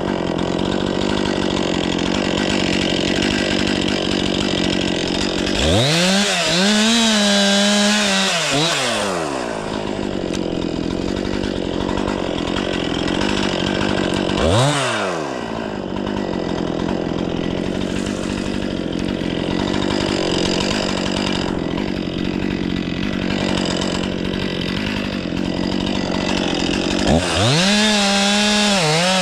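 Stihl 500i two-stroke chainsaw idling, revved up about six seconds in for a few seconds, given a short blip of throttle near the middle, and revved again near the end.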